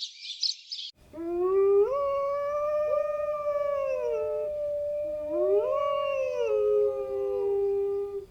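A canine's long, drawn-out howl, rising in pitch and then held steady, with a second rising howl overlapping about five seconds in.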